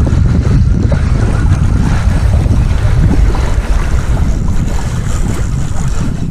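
Steady heavy wind buffeting the microphone, a loud low rumble, with the wash of water around it.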